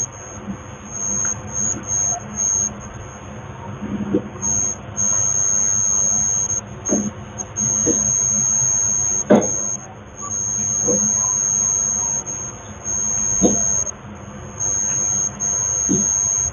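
A steady high-pitched tone that keeps cutting in and out every second or two, over a low background hum, with irregular sharp knocks a second or more apart.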